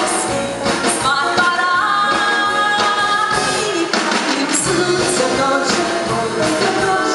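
Live band with electric guitars, drum kit and accordion playing a lively retro pop song, with women singing into microphones over it, heard in a large hall.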